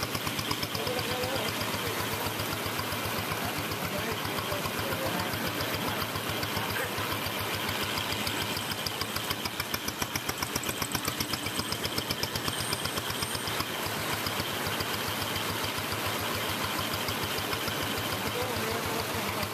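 Small motorcycle engine running steadily with an even, rapid pulse, carrying a sidecar tricycle through floodwater.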